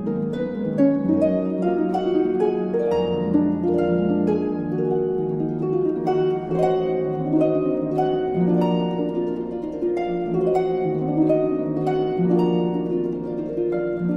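Instrumental background music of plucked string notes, harp-like, played in a continuous flowing run of several notes a second.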